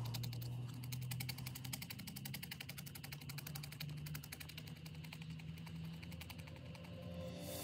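Felting needle poking wool fibre into a foam pad in quick, even jabs, several a second, as the piece is felted down to firmness, over a low steady hum.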